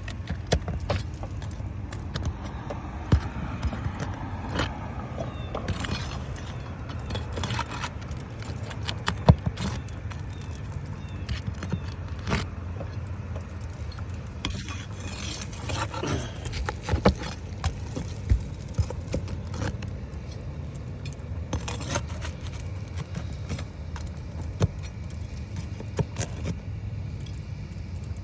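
Hand tools working on asphalt roof shingles: irregular metallic clinks, scrapes and knocks as shingles are pried up and unsealed, over a steady low rumble.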